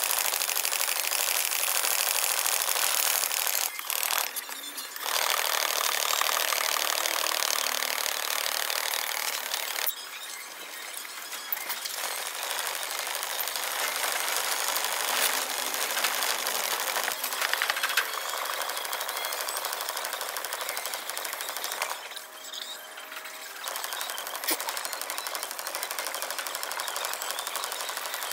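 Carbon-steel gyuto blade stroked back and forth by hand on wet whetstones: a fast, gritty, rhythmic scraping of steel on stone, first on a coarse #400 stone and then on a #1000 stone, with a few short breaks.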